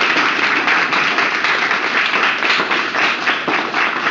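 Audience applauding: a seated group clapping their hands, a loud, dense, continuous patter of claps.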